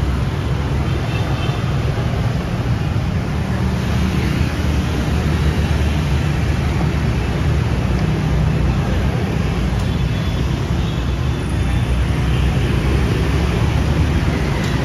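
City street traffic: a steady, loud din of passing vehicles.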